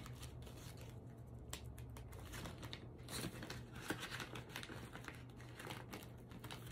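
Faint crinkling and rustling of paper banknotes and clear plastic cash envelopes being handled, a scatter of short soft crackles and ticks.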